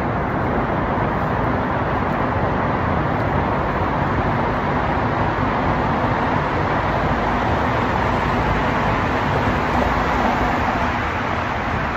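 Steady traffic noise echoing through a road tunnel, swelling as a truck passes close by near the end.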